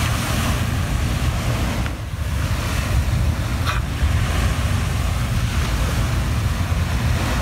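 Wind buffeting the microphone in a steady low rumble over the hiss of sea surf, with a couple of faint knife strokes on a plastic cutting board.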